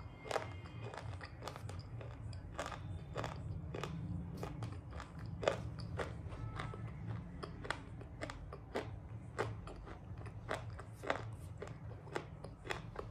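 Close-up chewing of crunchy dry clay shale: a steady run of sharp crunches, about two a second, over a steady low hum.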